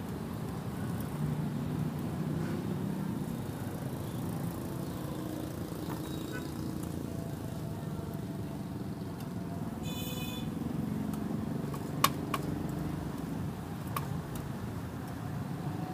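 Street-stall ambience with a steady traffic hum and a brief high beep about ten seconds in, then a few sharp knocks near the end: a cleaver chopping meat on a wooden chopping block.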